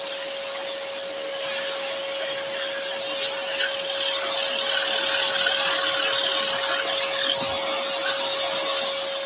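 Axminster Trade AT406SS scroll saw running with a steady hum, its modified-geometry blade sawing through a thin wooden panel; the cutting hiss grows louder after about a second and a half.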